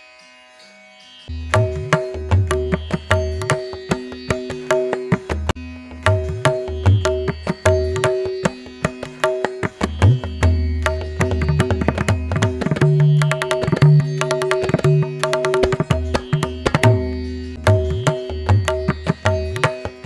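Indian classical-style music: a quiet string passage fades out, then about a second in, rhythmic hand-drumming in the manner of tabla starts over a steady drone and carries on.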